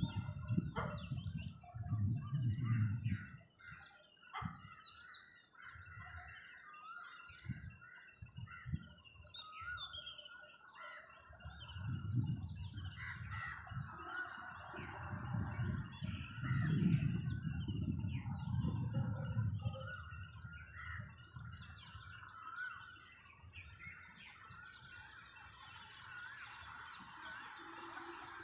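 Morning bird chorus: many birds chirping and calling, with a few high whistles that fall in pitch. A low rushing sound swells and fades several times underneath.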